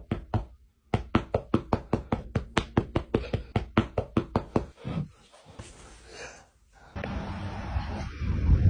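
A hand drumming fast on a bed mattress: a quick even run of knocks, about six or seven a second, lasting nearly four seconds.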